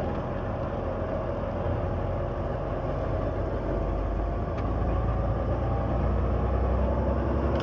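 Diesel engine of a semi-truck and road noise heard from inside the cab while driving, steady and low, growing a little louder about five seconds in as the truck straightens out after a turn and picks up speed.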